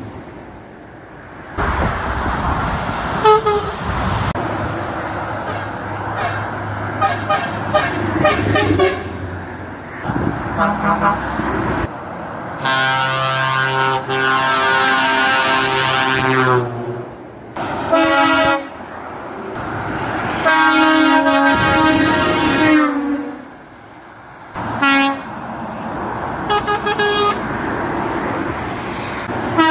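Truck horns sounding in a series of separate blasts: several short toots, a long blast of about four seconds near the middle, and more blasts after it, with traffic noise between them.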